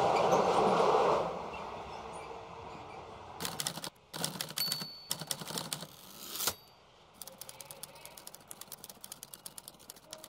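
Moving train's running noise for about the first second, fading out. Then a typewriter sound effect: clusters of sharp key clacks, and from about seven seconds in a quick, even run of key strikes as text is typed out.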